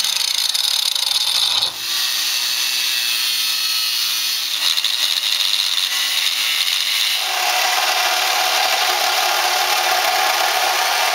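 Angle grinder with a cut-off wheel cutting into the steel shell of an air-compressor tank, its motor pitch sagging slightly under load, with a brief break near two seconds. About seven seconds in it gives way to a reciprocating saw cutting through the tank's steel.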